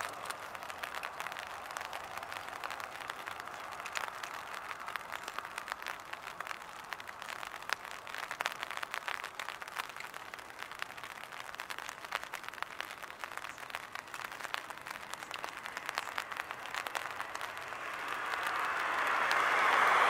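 Cats crunching dry kibble from plates on the ground: a dense, irregular patter of small crunching clicks over a steady hiss. Near the end a passing vehicle's tyre noise swells up loud.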